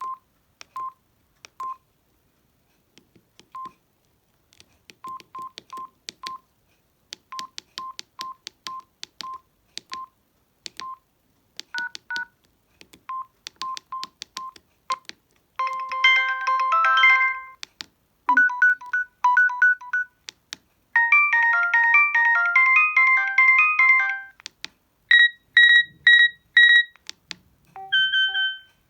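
Samsung SGH-D600 mobile phone: a string of short single key beeps as its menus are stepped through, then several of its built-in alarm tones, electronic beeping patterns and short melodies, each played for a second or two and cut off for the next.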